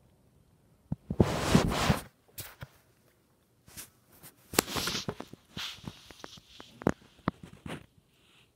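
Handling noise on the recording phone: rubbing and rustling with a series of sharp taps and clicks, as if the lens and microphone are covered by hand. The loudest part is a rush of rubbing about a second in.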